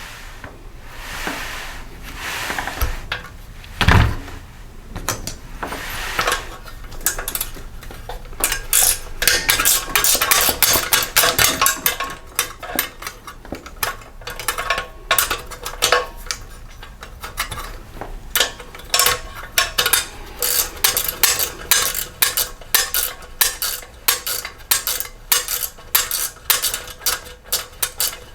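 Socket wrench and bolts working on a small engine's metal heat shield: a thump about four seconds in, then rapid metallic clicking and clinking, several clicks a second, as the bolts are backed out.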